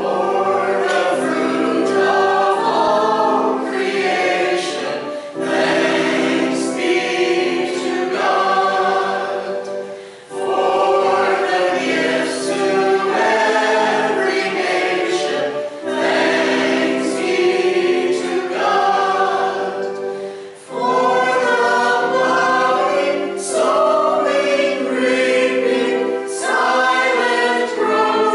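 Small mixed church choir of men and women singing a hymn, line after line with short breaks between phrases.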